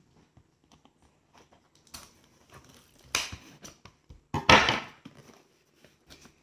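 A small cardboard box being torn open by hand: scattered crackles and rips of cardboard and paper, the loudest a rip about four and a half seconds in.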